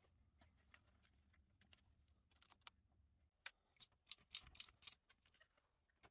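Faint, irregular metal clicks and taps of a spark plug socket and T-handle being worked down onto the plug, with a quick run of clicks a little past halfway.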